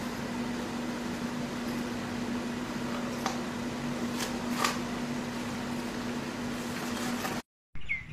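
Steady mechanical hum with one constant low tone and a few faint clicks. It cuts off abruptly near the end.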